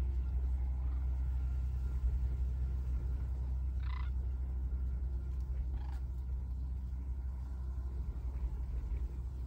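A steady low rumble, with two short rattling calls from sandhill cranes about four and six seconds in.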